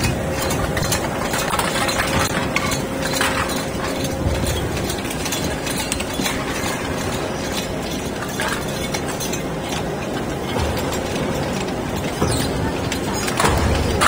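Hydraulic aluminum can baling machine running: a steady mechanical din with a faint hum, broken by scattered clinks and clanks of crushed aluminum cans and one louder clank near the end.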